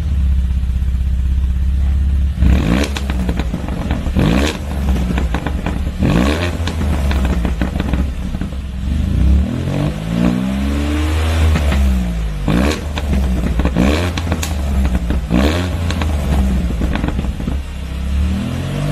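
Porsche 958 Cayenne GTS MK2's 3.6-litre twin-turbo V6 through a straight-piped mid exhaust section, idling with a deep rumble and revved again and again. Most throttle blips are short, each rising and falling in pitch; a couple around the middle and near the end are held longer.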